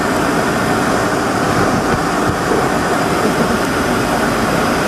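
Steady, loud noise of the electric air blower that keeps an inflatable obstacle course inflated, with a faint steady motor hum in it.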